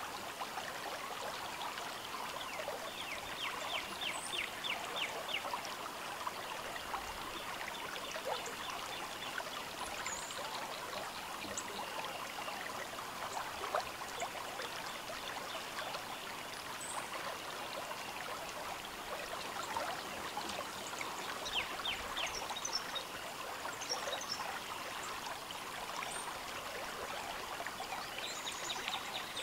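River water trickling and babbling steadily at the bank, with faint high chirps and short runs of rapid ticking now and then.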